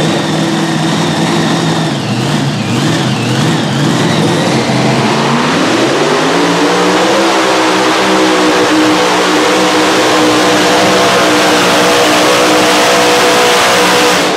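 Mini Unlimited pulling tractor's supercharged engine at full throttle under load, dragging the pulling sled. It runs lower for the first few seconds, climbs steeply in revs about five to seven seconds in, holds high, and drops off at the very end.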